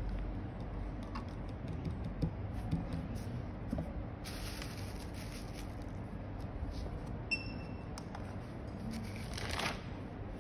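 Packaging being handled: rustling plastic and paper with scattered light taps and knocks of a cardboard box and bubble wrap on a silicone work mat.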